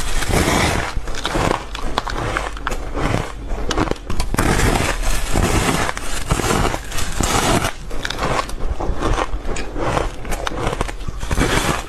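Fluffy, frost-covered ice being bitten and chewed: continuous crunching with many sharp crackles.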